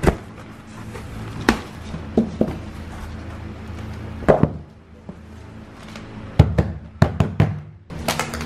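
Background music with a series of sharp knocks and thumps from a cardboard parcel and a plastic-wrapped fabric storage box being handled on a wooden floor, several in quick succession between about six and seven and a half seconds in.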